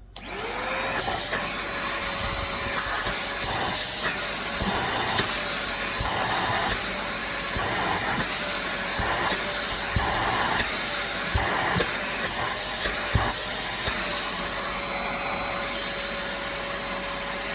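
Corded stick vacuum cleaner switched on: its motor spins up within a moment to a steady whine over a rush of air, which is not that loud for a vacuum cleaner. In the middle the airflow sound swells and dips several times as the vacuum is handled, with a few light knocks.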